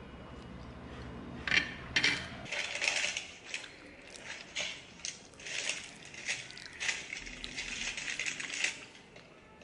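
Plastic spoon clicking and scraping against a plate while eating, an irregular run of small sharp clicks. Background music ends about two seconds in.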